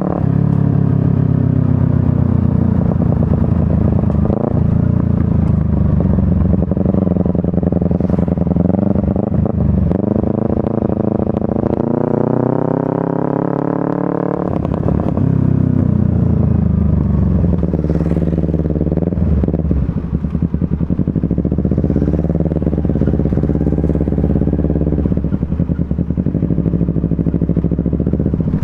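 Honda Supra underbone motorcycle with a swapped-in Kawasaki Ninja 250 engine, ridden on the road. The engine note rises and falls repeatedly as it pulls through the gears, with one long climb in pitch that drops off suddenly about halfway through.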